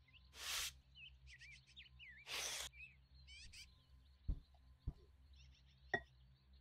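Two short rushes of hiss as cocoa powder and flour are tipped into a glass mixing bowl, then three sharp knocks, the whisk against the bowl, in the second half. Faint bird-like chirps come and go in the background.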